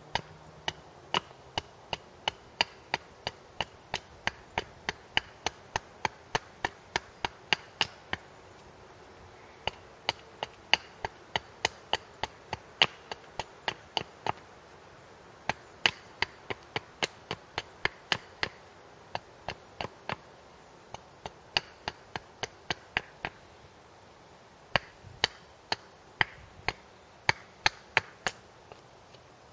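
Steady series of sharp knocks, about two a second, in runs with a few short pauses. A hatchet head is striking the back of a blade to drive it through wood on a chopping block, shaping a wooden splitting wedge.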